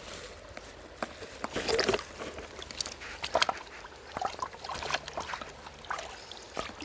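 Stones clicking and knocking together in scattered, irregular taps, with water sloshing faintly underneath.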